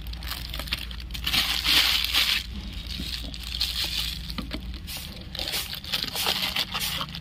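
Clear plastic wrapper crinkling as it is crumpled by hand, in two bursts, about a second in and again near the end, with small clicks and the scrape of a cardboard box being opened.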